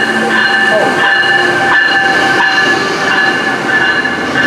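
Passenger train led by an Amtrak ACS-64 electric locomotive rolling past at close range, its bell ringing steadily over the rumble of the cars.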